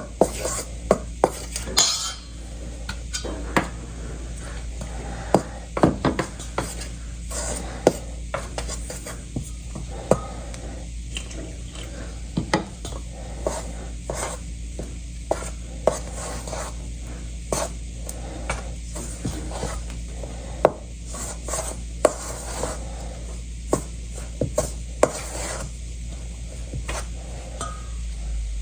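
Kitchen utensils and dishes clinking and clattering: many short, sharp knocks spread unevenly throughout, over a steady low hum.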